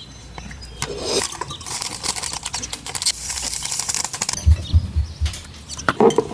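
Hands preparing a dessert in the kitchen: scraping, rustling and clicking handling noises, with four quick low thumps about two-thirds of the way through.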